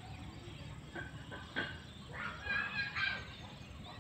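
A series of short, high animal calls in quick succession, starting about a second in and loudest around three seconds in, over a steady low background noise.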